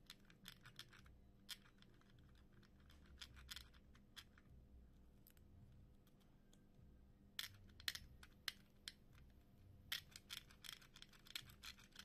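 Faint, scattered scratches and ticks of a metal blade scraping the plastic insulation off the end of a flat flex cable to bare its contacts, coming in a few short clusters with the busiest near the end.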